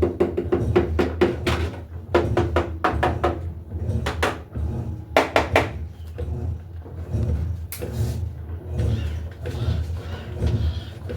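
An Electrolux LTE08 top-loading washing machine running a wash programme. A steady low motor hum runs under clusters of quick clicks and knocks from the drum and load.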